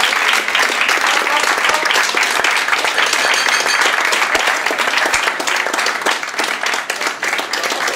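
A room of party guests applauding, a dense, steady clapping that eases a little near the end.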